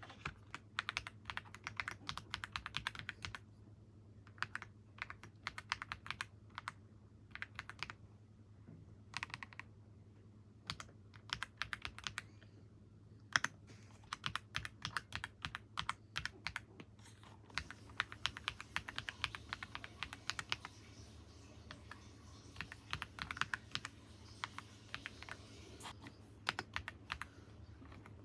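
Typing on a computer keyboard: flurries of quick key clicks broken by short pauses, over a low steady hum.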